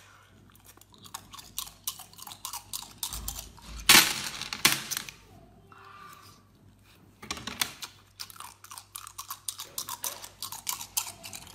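Close-up mouth sounds of someone eating sea snail meat pulled off bamboo skewers: wet chewing with many small clicks and smacks, and two louder bursts about four seconds in.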